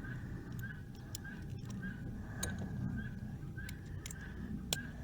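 Scattered light metallic clicks and taps of hand tools working on bolts, over a steady low background hum and a faint chirp repeating about three times a second.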